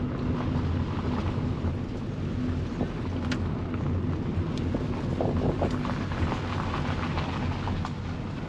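Vehicle driving, heard from inside: a steady low drone of engine and tyres on the road, with scattered small rattles and knocks.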